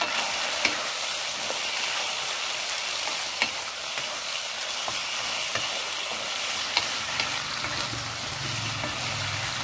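Pork and raw pork liver sizzling in a non-stick wok while being stirred with a wooden spatula. A steady frying hiss runs throughout, with a few sharp clicks where the spatula knocks against the pan.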